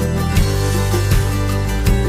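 Background music: strummed acoustic guitar with a steady beat, country style.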